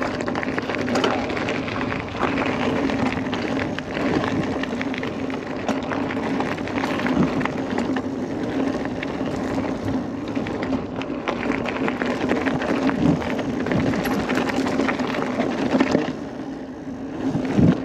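Niner 29er mountain bike being ridden down a rough dirt singletrack: tyre noise over the ground with constant clicks and rattles from the bike, over a steady low hum, easing off a little near the end.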